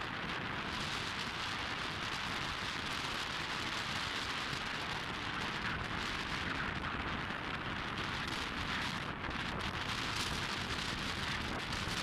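Steady wind buffeting the microphone of a moving bike, with road noise underneath.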